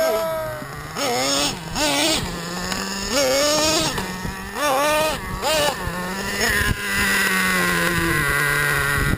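Small nitro engines of RC monster trucks revving hard, their high buzzing pitch rising and falling several times, then running at a steadier speed in the last few seconds.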